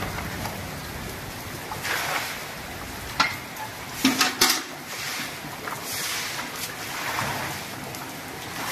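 Steady rain falling on a paved courtyard, with a broom swishing water across the wet tiles in repeated strokes about every second or so. A few sharp knocks come around the middle.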